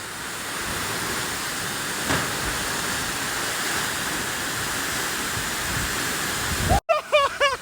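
Steady rushing noise of a waterfall, swelling over the first second and then holding. Near the end it cuts off abruptly and wavering voices come in.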